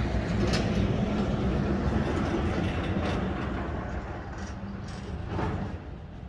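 A heavy vehicle passing on the highway: a steady low rumble with a few rattling clanks, fading over the last couple of seconds.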